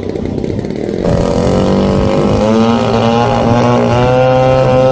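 RC model airplane motor running up about a second in, its pitch climbing and then holding steady at high speed.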